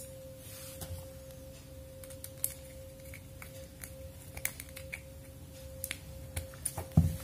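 Scattered small clicks and taps of electrical wiring work, a wire being handled and fastened at a switch terminal, with a louder low thump near the end. A steady faint tone runs underneath throughout.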